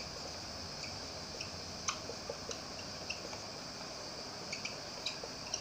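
Marker pen writing on a whiteboard: faint, irregular taps and squeaks of the tip over a steady hiss, with the clearest tap about two seconds in.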